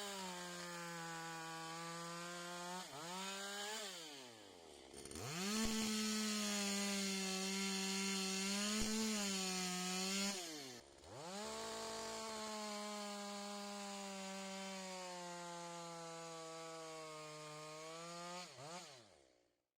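Two-stroke chainsaw running at high revs in three long runs. Its note drops away briefly twice between them, then dies out near the end.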